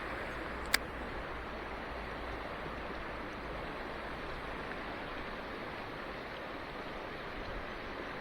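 Mountain stream water rushing steadily, with a single sharp click a little under a second in.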